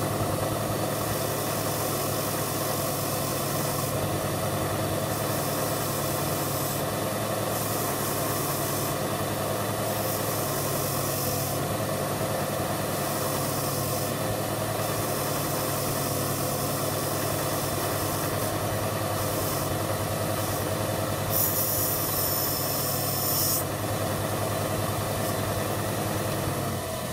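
Bench grinder with a wire wheel running steadily, with a hiss that comes and goes as a pewter casting is pressed against the wire brush, loudest about two-thirds of the way through. The motor winds down at the very end.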